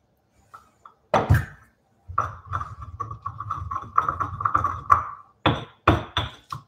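Stone mortar and pestle mashing herbs and greens: a single knock, then about three seconds of rapid grinding strokes, then four separate pounding strikes near the end.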